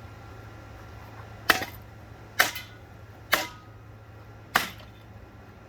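Four sharp knocks about a second apart as a ceiling fan is hit while being smashed, one leaving a short metallic ring.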